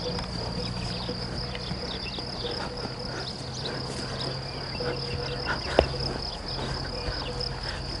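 Crickets chirring in a continuous, steady high-pitched drone, with one sharp click a little before six seconds in.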